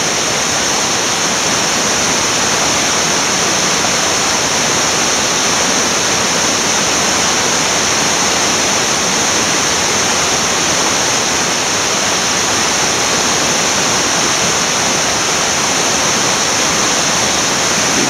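Rocky creek rushing over small cascades and waterfalls: a steady, unbroken rush of water.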